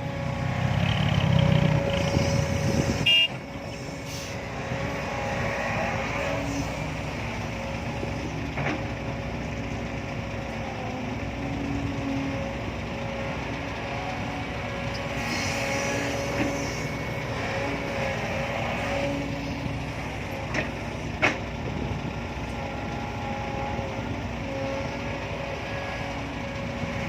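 Heavy diesel engine running steadily with a held whine, louder for the first three seconds, then dropping back; two sharp knocks stand out, one about three seconds in and one near the end.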